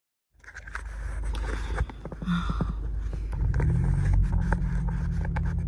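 Rustling and several sharp clicks of handling. Then, about three seconds in, a steady low car engine hum comes up, rising briefly in pitch before it holds level.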